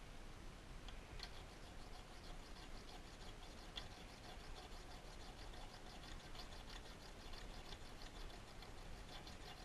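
Brazed carbide lathe tool bit rubbed back and forth by hand on a small diamond sharpening stone: faint, quick scratchy strokes, a few each second.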